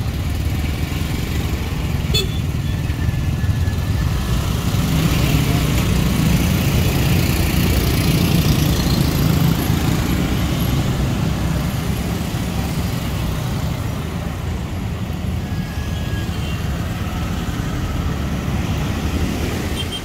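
Road traffic at an intersection: motorcycle and car engines running, with a steady low rumble that grows louder a few seconds in as the vehicles move through, then eases. Voices of people around are faintly mixed in.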